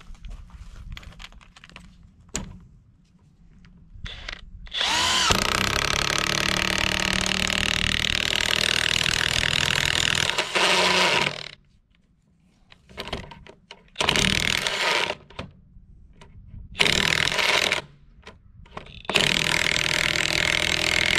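DeWalt DCF899 cordless impact wrench hammering a 1/2 by 5 inch lag bolt into wood on its third speed setting. After a few seconds of handling noise it makes one long run of about seven seconds, then three shorter bursts as the trigger is let go and pulled again while the bolt head seats.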